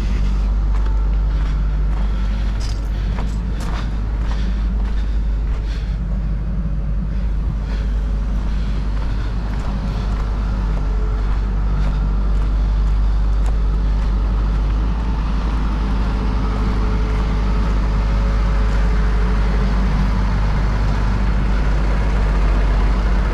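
Heavy diesel engine idling steadily, a constant low rumble, with a few light clicks in the first few seconds.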